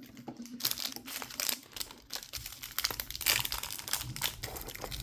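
Small plastic packaging bags crinkling and rustling as they are handled, in a run of quick irregular crackles.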